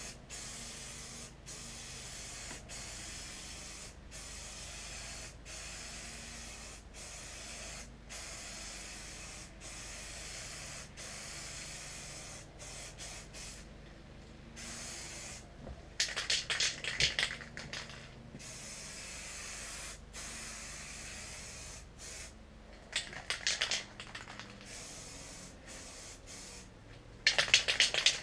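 Aerosol spray-paint can spraying white paint onto a tailgate in steady hissing passes, broken by many short pauses between strokes. Three times in the second half the hiss gives way to a loud brief rattle, the can being shaken.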